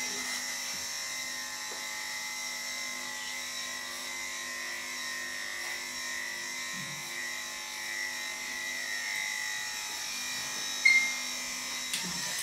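Electric pet grooming clippers running with a steady high hum as they shave a bichon frise's coat, then switched off right at the end.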